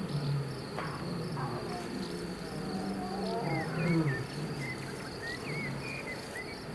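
Insects chirping steadily in a high, evenly pulsing drone, with short curling chirps above a low, uneven rumble that swells about four seconds in.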